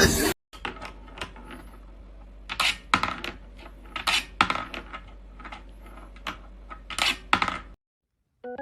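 A series of irregular sharp clicks and clinks of small hard objects, some leaving a faint high ring, over a low steady hum; it cuts off to silence near the end.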